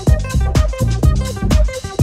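House music with a steady kick drum beat, about two beats a second, under repeating melodic synth notes.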